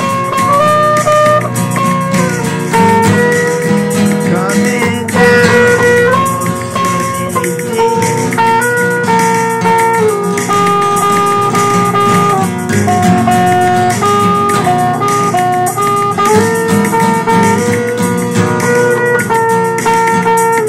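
Guitar music with no singing: a melody of held notes stepping up and down over a steady, full accompaniment.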